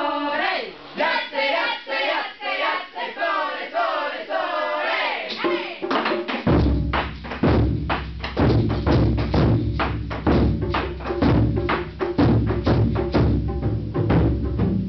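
Singing voices for about six seconds, then a large odaiko taiko drum struck with wooden bachi in a fast, driving rhythm of heavy, booming strokes.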